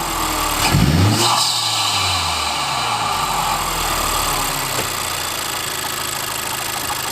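Honda Civic Type R's 2.0-litre turbocharged four-cylinder engine revving, its turbo spool and intake rush made loud by an open aftermarket high-volume air intake. About a second in there is a sharp throttle burst, and between bursts the engine note falls away.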